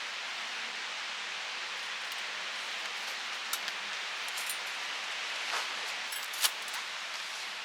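Steady outdoor hiss, with a few short, sharp clicks in the second half; the loudest click comes about six and a half seconds in.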